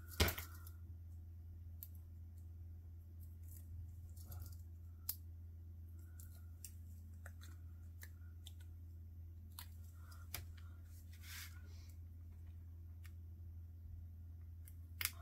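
Paper-crafting handling sounds: a sharp click just after the start, then scattered light clicks and a few short paper rustles, over a steady low hum.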